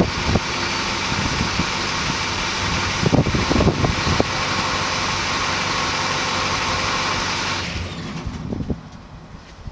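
2005 Chevrolet Duramax 6.6 L turbo-diesel V8 idling cold from the tailpipe after a winter cold start: a steady running sound with a hiss over it. Near the end the sound drops away sharply and the engine noise falls off.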